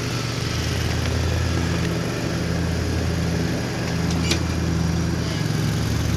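Lawn mower engine running steadily, a constant low hum.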